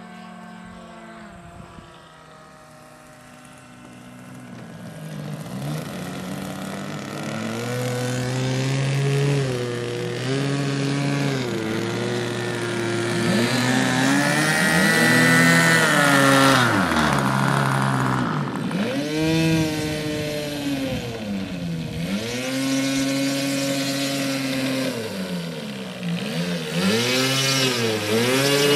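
Single-cylinder engine of a radio-controlled model airplane running, faint at first and much louder from about four seconds in, its pitch rising and falling again and again as the throttle is worked.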